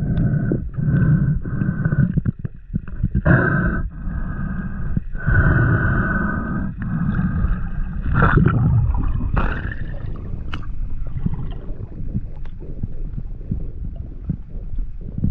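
Muffled water noise through an action camera's underwater housing, coming in uneven surges that fade in the second half.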